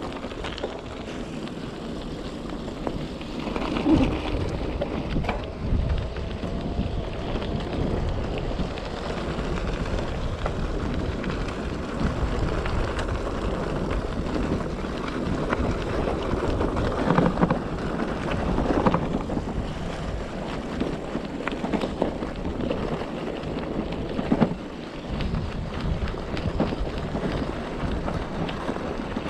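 Wind rushing over the microphone and tyre noise from an e-bike riding a rough gravel track, with a few louder knocks from bumps scattered through.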